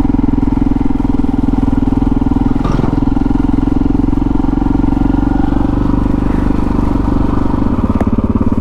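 KTM 640 Adventure R's single-cylinder engine running under way at steady revs; near the end the note drops to a slower, lower throb.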